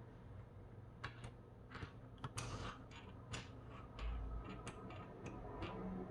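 Irregular sharp clicks and taps from a Keychron K1 SE low-profile mechanical keyboard, about a dozen, spread unevenly from about a second in.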